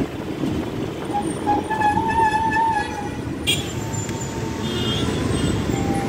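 City bus interior while riding in traffic: steady engine and road rumble. A vehicle horn sounds for about a second and a half starting a second or so in, and a sharp click comes about halfway through.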